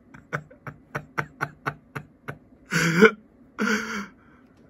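A person laughing: a run of short chuckles, about four a second, then two louder breathy bursts like coughing laughs near the end.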